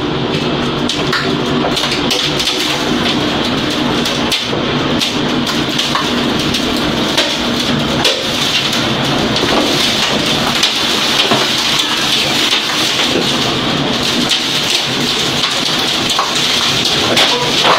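Tornado wind driving heavy rain against a window: a loud, steady rush of wind and rain with many small sharp taps of rain and debris striking the glass, a few harder hits near the end.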